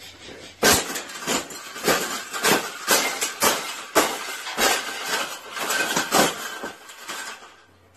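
A person stomping on a floor in a steady beat, about two sharp stomps a second, starting under a second in and stopping just before the end.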